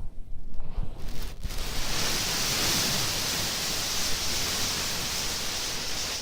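Steady hiss of rushing air from an air conditioner's heating airflow, starting suddenly about a second and a half in and cutting off suddenly near the end.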